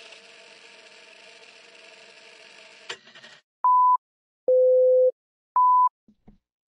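Film-countdown sound effect: a steady film-projector whir that stops abruptly about three and a half seconds in, followed by three loud electronic beeps (a short high one, a longer lower one, then another short high one) and a couple of faint clicks.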